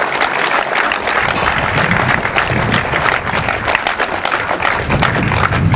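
Crowd applauding, a steady clatter of many hands clapping.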